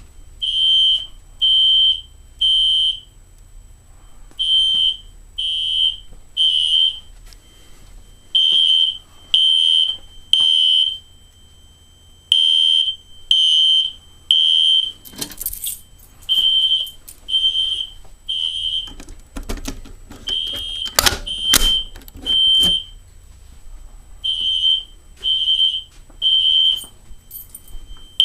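System Sensor SpectrAlert fire alarm horns sounding the temporal code-3 evacuation pattern: groups of three loud beeps about a second apart, with a new group about every four seconds. The horns are kept in step by a System Sensor MDL sync module, and the system is in alarm after its pull station was pulled. A thin steady high tone runs under the beeps, with a few sharp clicks.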